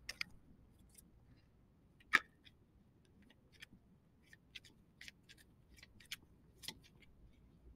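Faint, scattered light clicks and taps of small objects being handled over quiet room tone, with one sharper click about two seconds in.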